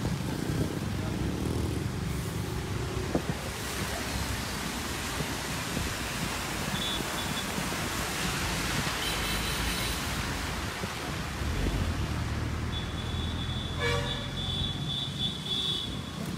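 Road traffic on a wet road: a steady engine and road rumble from moving vehicles, with horns tooting. Short toots come in the middle, and a longer high-pitched horn sounds near the end.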